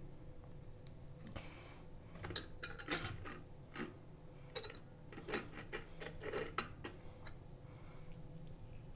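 Irregular run of small clicks and crackles from hands squeezing the juice out of steamed tulsi (holy basil) leaves, starting about a second and a half in and stopping a couple of seconds before the end.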